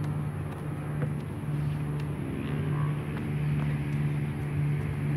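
Steady low mechanical hum with a few faint basketball bounces on a hard court.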